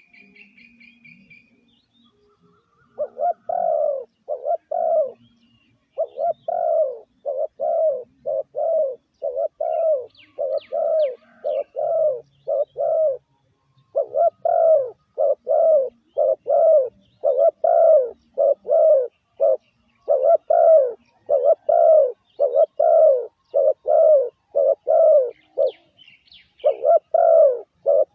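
Spotted dove cooing in long runs of short, arched coo notes, about two a second, broken by brief pauses. These are the bowing 'gù' coos used as a lure call to draw in wild doves.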